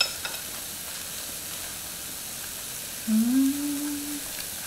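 Steady sizzling of food cooking on a tabletop grill plate over a portable gas stove. A brief click comes right at the start, and a short rising closed-mouth hum of enjoyment from the eater sounds about three seconds in.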